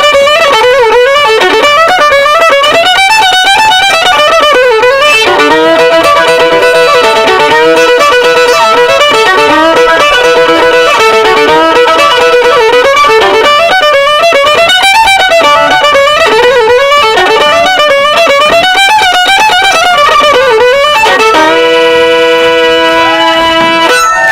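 Violin playing a flowing melody with wide vibrato over held accompanying chords, settling on a long sustained chord near the end.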